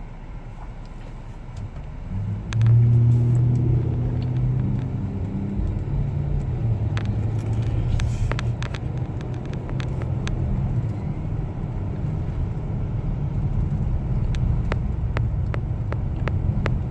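Car engine and road noise heard from inside the cabin, rising about two and a half seconds in as the car picks up speed, then running steadily. Near the end comes a run of short clicks, about two a second.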